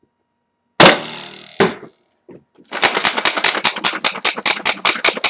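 A modified XXL Bazooka foam-missile launcher fires once with a loud spring-driven blast, and the missile knocks against the far end of the hall under a second later. About a second after that, the priming crank starts ratcheting in rapid sharp clicks, about six a second, winding the extension spring for the next shot.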